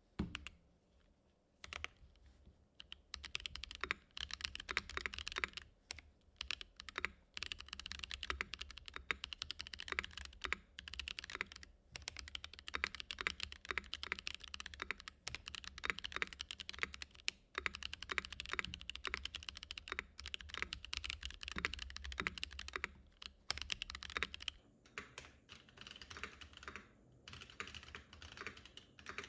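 Fast, continuous typing on a custom Ikki68 R2 mechanical keyboard with Black Boba U4T tactile switches, an aluminium plate and ABS keycaps: a dense run of deep, muted keystroke clacks with short pauses. For the last few seconds it is recorded through a phone's microphone.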